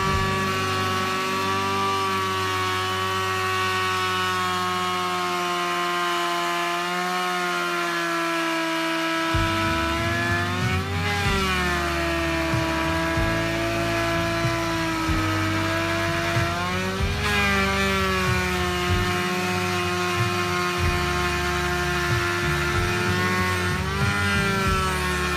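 A power tool running steadily with a held whine, its pitch bending briefly twice.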